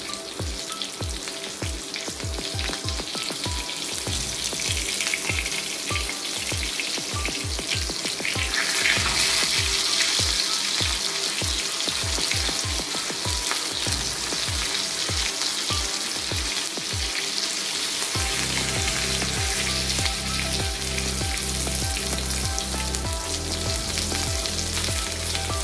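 Rava-coated pomfret slices shallow-frying in hot oil in an iron pan: a steady sizzle that grows louder about nine seconds in, with the occasional scrape of a steel spatula turning the fish.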